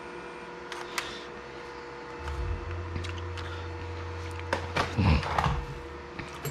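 Handling noises: a few sharp clicks about a second in, then a louder cluster of clicks and rustles around five seconds in, over a low steady hum.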